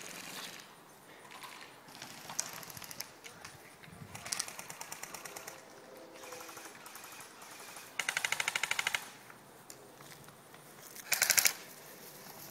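Airsoft electric guns (AEGs) firing full-auto bursts of rapid BB shots: fainter bursts early on, then a loud burst of about a second past the middle and a short loud burst near the end.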